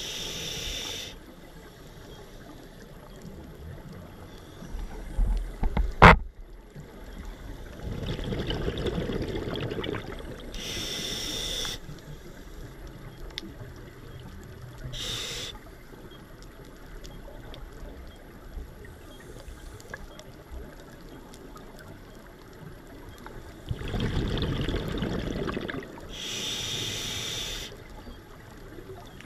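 Scuba regulator breathing heard underwater through a camera housing: twice a long bubbling exhale followed by a hissing inhale, with shorter hisses in between. A single sharp knock, the loudest sound, comes about six seconds in.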